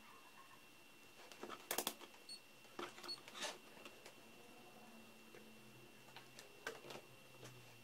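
Light clicks and taps of metal multimeter probe tips being placed on and moved between the NiCd cells of an opened cordless-drill battery pack. The handful of short knocks is clustered about two and three seconds in, with one more near the end.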